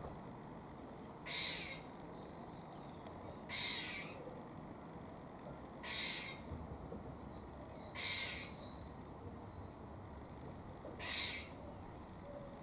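Grey squirrel giving its warning call: five short, harsh calls, each about half a second long, repeated every two to three seconds.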